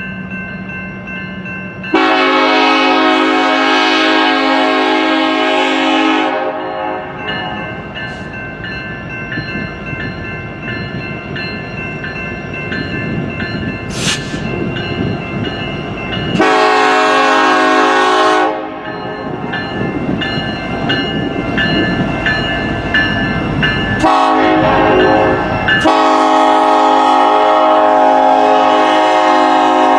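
Diesel freight locomotive air horn sounding the grade-crossing signal: two long blasts, a short one and a final long one held on, over the rumble of the moving train.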